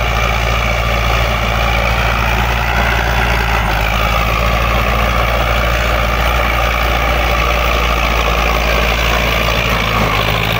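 Farm tractor's diesel engine running steadily under load while ploughing, heard loud and close as the tractor passes.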